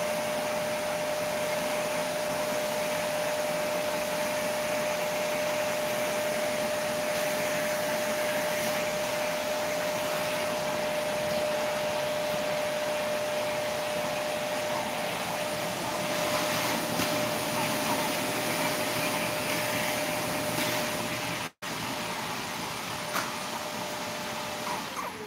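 Steady whooshing machine noise with a constant whine, like an appliance's motor running. It drops out for an instant about three-quarters of the way through, and the whine stops near the end.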